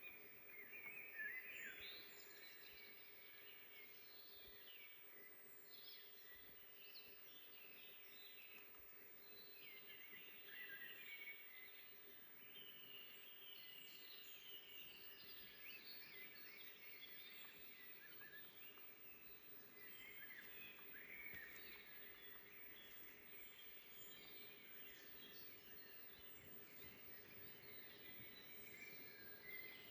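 Many songbirds chirping and singing at once, short overlapping calls and trills throughout, quiet, over a faint steady hum.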